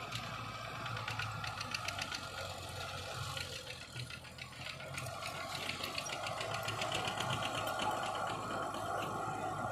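Heavy diesel earthmoving machinery running steadily, with a fast rattle of clicks over the engine hum, growing louder about halfway through.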